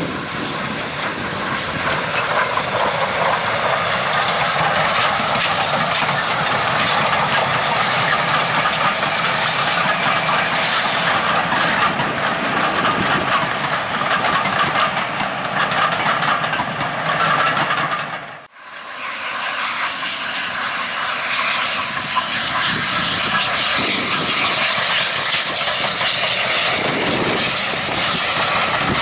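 Steam-hauled passenger trains running past: first the Bulleid Pacific 34053 Sir Keith Park, then, after an abrupt cut about two-thirds of the way through, a green Great Western steam locomotive. Both give a steady rush of steam exhaust and wheel noise on the rails.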